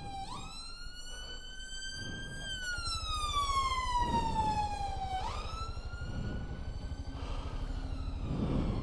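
Ambulance siren wailing close by: a long tone that climbs quickly, then sinks slowly in pitch, over and over. The Royal Enfield Scram 411's single-cylinder engine idles underneath as a low steady rumble.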